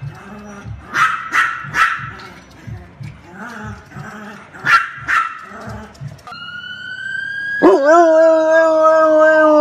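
A small dog barking in short sharp yaps, three in quick succession and then two more. Then a dog howling in one long, loud howl that slowly falls in pitch.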